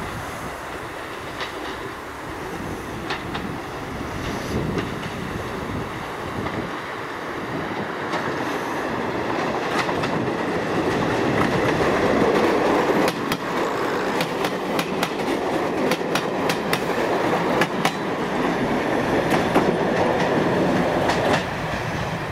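A BR Class 101 diesel multiple unit passing close by. It grows louder as it approaches, then its wheels click rapidly over the rail joints as the cars go by. The sound drops off sharply about a second before the end as the last car passes.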